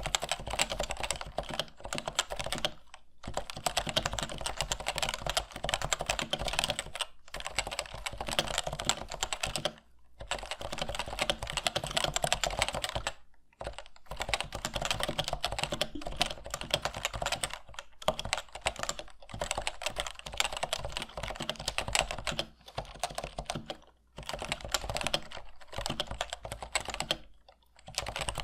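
Typing on a Topre Type Heaven keyboard with its stock ABS keycaps: fast, continuous keystrokes on its electrostatic capacitive rubber-dome switches, broken by short pauses every few seconds.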